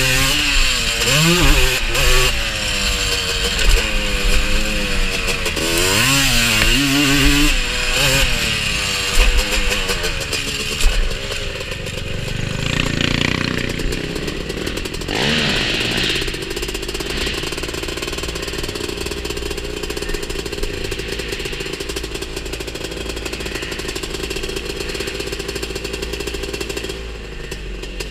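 Honda TRX250R's single-cylinder two-stroke engine revving up and down hard, then about eleven seconds in easing off to a steadier, lower running note that holds for the rest.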